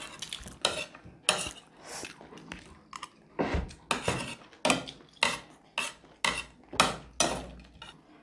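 Metal spoons and forks clinking and scraping against ceramic plates as people eat, in short irregular strokes about two a second.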